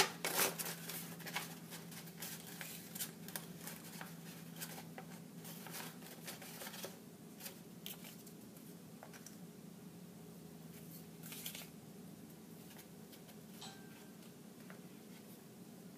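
Paper being handled: the cutout figures and paper teepee are shifted and fitted together with scattered rustles and light taps, busiest in the first half. There is another short rustle past the middle.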